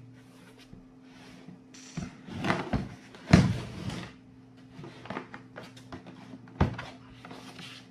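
Hard plastic tool case being handled on a workbench: several knocks and scrapes as it is set down flat, the loudest a little over three seconds in, then a sharp click near the end as its front latch is worked.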